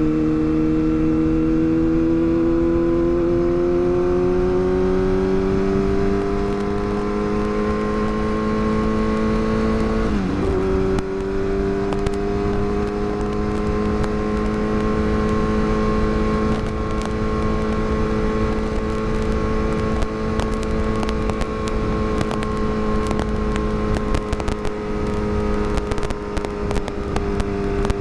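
Yamaha R6's inline-four engine under way, its pitch climbing gradually for about ten seconds. It breaks sharply and briefly just after ten seconds, then settles into a near-steady cruise with slight rises and falls.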